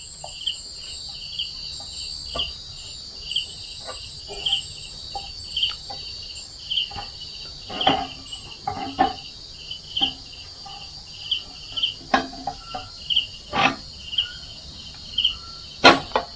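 Crickets chirping in an even rhythm, about three chirps every two seconds, over a steady high insect drone. Scattered light taps and knocks of hands working dough in a pot and tub come through, the loudest near the end.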